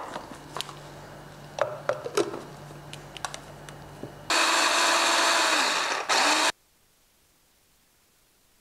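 Small kitchen food processor running in one loud, steady burst of about two seconds, processing dry barley-and-oat porridge mix or pecans, then cutting off abruptly. Before it come a few light clicks and knocks of kitchen items being handled.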